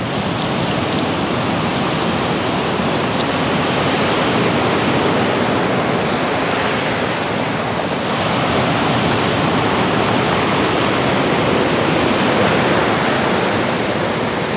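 Rough sea surf washing steadily onto a pebble beach: a loud, even rush of noise that swells a little now and then.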